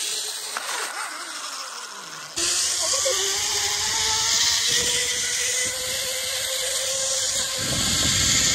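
Zip-line trolley whirring along the steel cable with a steady, slightly rising whine, while wind buffets the microphone. The rush jumps suddenly louder a little over two seconds in.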